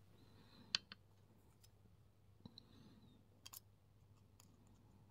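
A handful of light metal clicks and taps from small tools handled against a Mul-T-Lock 7x7 lock cylinder during disassembly, the sharpest under a second in.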